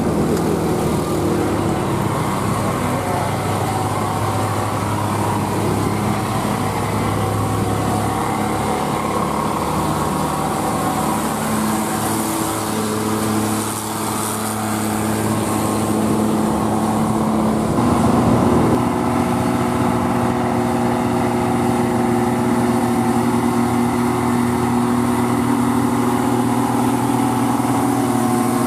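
Old round-nosed Mercedes-Benz tow truck's diesel engine labouring steadily uphill while towing a heavy truck, its engine note changing to a new steady pitch about two-thirds of the way through. Before it, the steady engine and road noise of slow uphill traffic.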